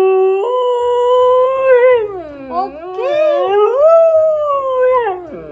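Siberian husky howling. A long held note steps up in pitch about half a second in, then breaks into wavering, rising and falling "talking" howls: the husky's reply to "I love you".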